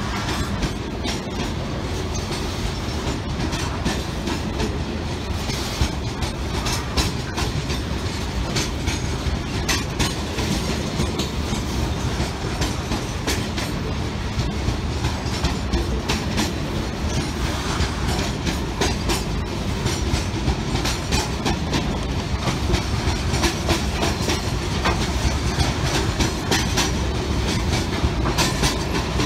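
Freight train of steel grain hopper wagons rolling past with a steady low rumble and continual clickety-clack of wheels over rail joints.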